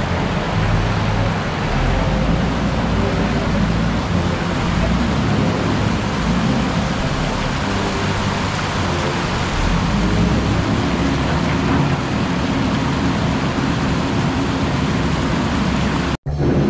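Steady rush of muddy floodwater pouring across the road, with rain falling. The sound cuts out for an instant near the end.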